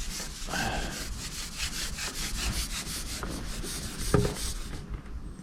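Rhythmic rasping rub of a fishing pole being handled, about six strokes a second, most likely the pole sliding back over a roller while a hooked fish is played. There is a sharp knock near the end, and the rubbing stops abruptly just after it.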